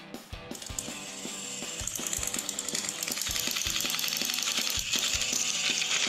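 Battery-powered toy locomotive's motor and gearbox running along plastic track with a fast clicking whir that grows louder about a second in as the engine comes close, over background music.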